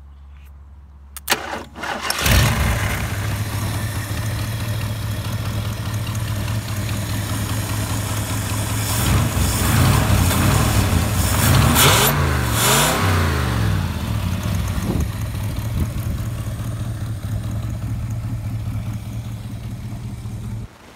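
1971 Ford pickup's engine started: a click, then it catches about two seconds in and runs. Near the middle it is revved up and down several times at the carburetor throttle linkage, then settles back to a steady idle.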